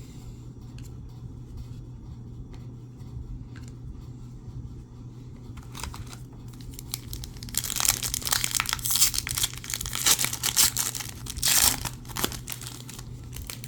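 Foil trading-card pack wrapper crinkling and tearing as it is ripped open, loudest in the second half, over a faint low steady hum.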